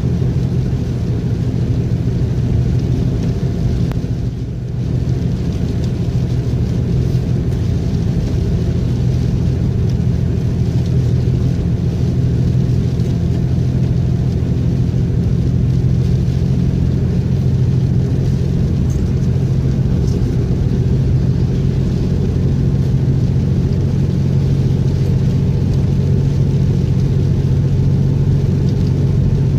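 A car driving at a steady speed, with a continuous engine hum and road noise and a brief dip about four and a half seconds in.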